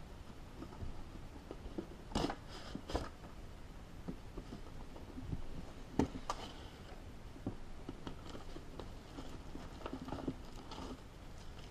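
Cardboard box and packaging of a graphics card being handled and opened: irregular rustling, crinkling and clicks, with louder bursts about two seconds in, around six seconds, and again near the end.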